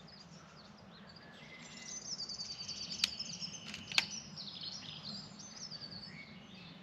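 AirMaks Katran PCP air rifle firing a JSB Ultra Shock pellet: two sharp cracks about a second apart, the second louder, with birds singing.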